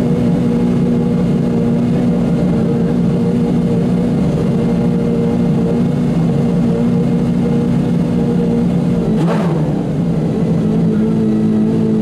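Pagani Zonda Revolucion's V12 idling steadily at a standstill, with one short throttle blip about nine seconds in before it settles back to idle.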